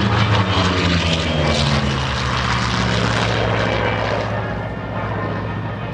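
Vought F4U Corsair's Pratt & Whitney R-2800 radial engine and propeller on a low, fast pass. The engine note drops in pitch as it goes by, then fades as the aircraft climbs away.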